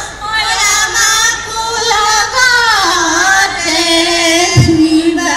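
Group of women singing together into microphones, amplified over stage loudspeakers, with a single low thump about four and a half seconds in.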